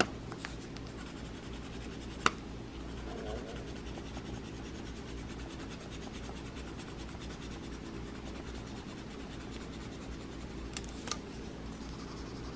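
Coloured pencil scratching on paper in short strokes, faint against a steady low hum. A sharp click comes about two seconds in and another near the end.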